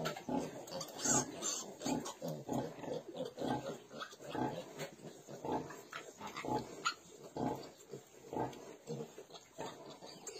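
Sow grunting in a regular rhythm, about one to two short low grunts a second, while her litter suckles: the rhythmic grunting typical of a sow nursing piglets.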